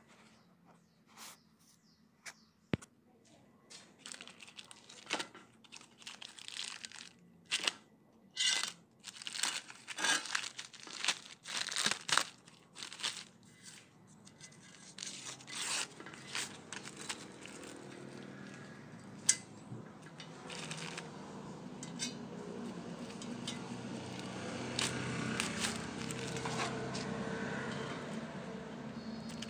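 Plastic wrapping film being torn and crinkled off a new car exhaust silencer. A run of short, sharp rips gives way in the second half to steadier rustling and crinkling that grows louder.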